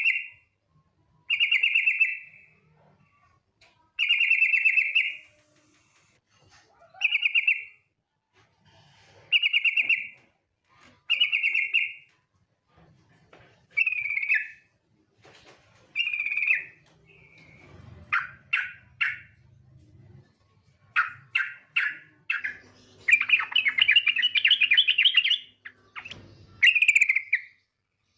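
Female yellow-vented bulbul (trucukan) calling to a male: a harsh buzzy call repeated about every two seconds, then rapid chattering runs of short notes, with a longer chatter about 23 seconds in.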